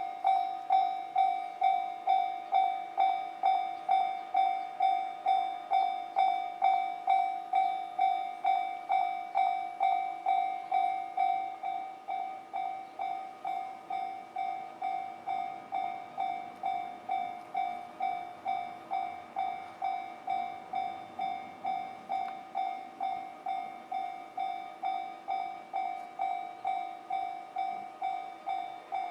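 Japanese railway level-crossing warning bell ringing in an even, repeating ding at about two strikes a second. It becomes quieter about eleven seconds in and keeps on ringing.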